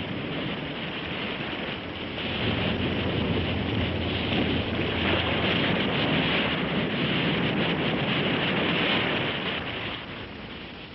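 Ocean surf: waves breaking and washing in a steady rush, swelling about two seconds in and fading near the end.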